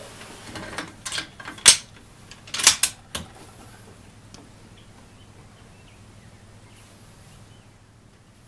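Sharp metallic clicks and clacks of a Bergara B14R bolt-action .22 LR rifle being worked at the bench. The loudest is a single crack about a second and a half in, followed about a second later by a quick cluster of clacks. After that there is only a faint steady hum.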